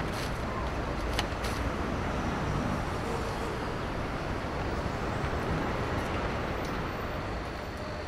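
Steady hum of street traffic coming through an open shop front, with a few light clicks in the first second and a half.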